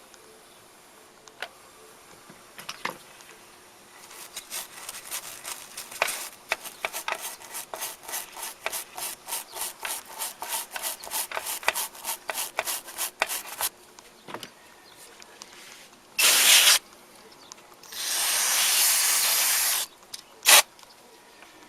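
Fast back-and-forth scrubbing of turntable mechanism parts during cleaning, about four strokes a second for roughly ten seconds. Then three loud spray hisses, a short one, a long one of about two seconds, and a brief final puff.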